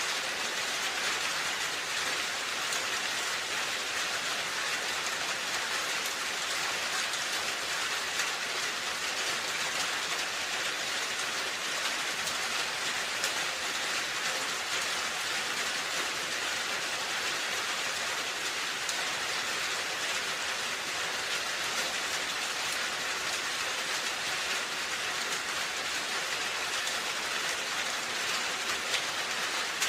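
Steady rain falling on a roof, an even dense patter of drops with no let-up.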